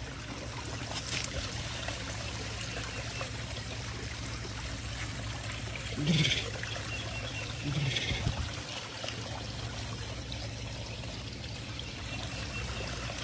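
Water trickling and running steadily over rocks at a pond's edge, with two short, louder low sounds about six and eight seconds in.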